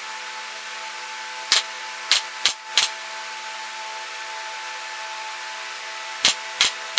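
A steady, even machine hum, like a power tool motor running, with six sharp clicks or knocks in two groups: four in the first half and two near the end.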